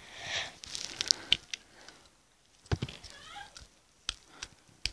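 Close handling noise from fingers on a fidget spinner: a brief rustle, then scattered sharp clicks and taps.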